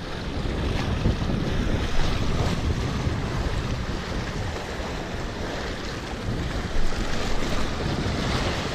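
Wind buffeting the microphone over small waves washing and splashing around a wader in shallow surf.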